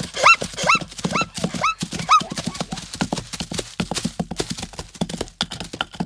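A herd of zebras galloping: a dense clatter of hoofbeats, with a string of short, yelping barking calls in the first two seconds.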